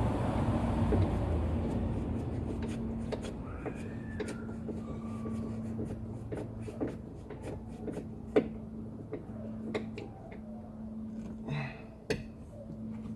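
Scattered clicks, knocks and rustling of a Ford Ka's plastic pillar trim being pulled and handled, over a steady low hum.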